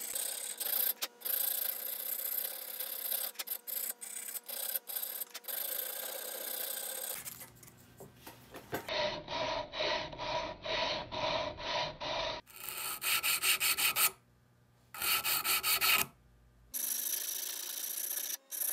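A strip of sandpaper pulled back and forth, shoeshine-style, over a carved spalted-wood crankbait body held in a vise: scratchy rubbing strokes in runs that break off abruptly, about two strokes a second in the middle, faster near the end.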